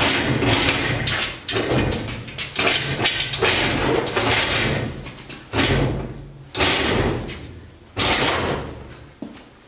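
Casters of a Sunex 5222 two-ton engine crane rolling over rough concrete under a heavy hanging load, in a string of about seven hard shoves. Each shove is a sudden rumble that dies away within about a second.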